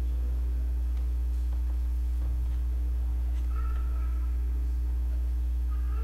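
A steady low hum with a thin steady tone above it. A soft held musical note sounds for about a second in the middle, and there are a few faint clicks.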